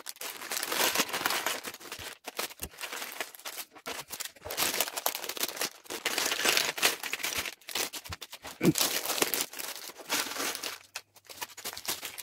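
Thin plastic LEGO parts bags crinkling and tearing as they are handled and opened, in irregular bursts with a few small knocks.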